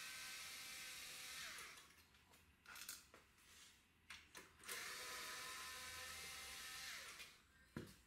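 Cordless electric screwdriver backing out the front-panel screws of a cassette deck. It gives two steady whining runs of about two seconds each, and the pitch falls at the end of each as the motor stops. A few light clicks come between the runs.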